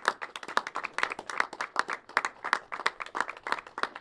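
Several people clapping in a round of applause: dense, irregular hand claps throughout.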